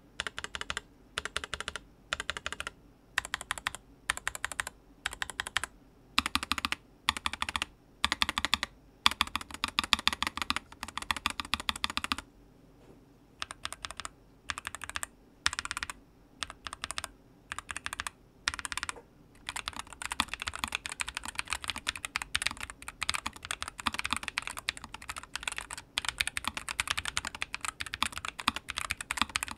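Typing on a NuPhy Air75 V2 low-profile mechanical keyboard fitted with XVX Skyline low-profile PBT double-shot keycaps: rapid keystroke clicks, first in short bursts with pauses between, then steady unbroken typing through the last third.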